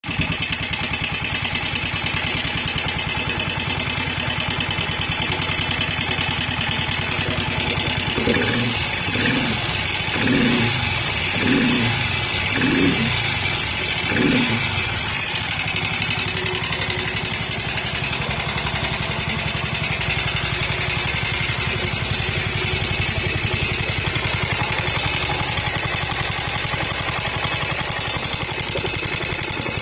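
Yamaha SR400's air-cooled single-cylinder engine idling with an even beat. About eight seconds in it is blipped six times in quick succession, each rev rising and falling back, and then it settles to idle again.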